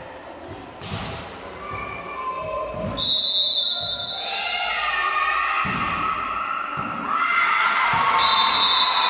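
A volleyball being struck, a couple of sharp thumps echoing in a large sports hall, then a shrill referee's whistle about three seconds in. Girls' voices then shout and call out, and a whistle sounds again near the end.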